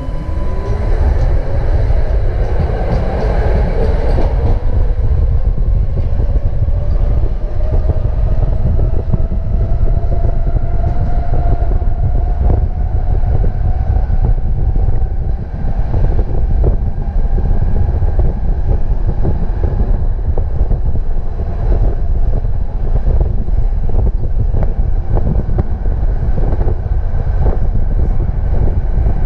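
Budapest tram riding and gathering speed: the electric traction motors give a whine that rises steadily in pitch over a heavy rumble of the running gear, with scattered sharp wheel clicks on the rails.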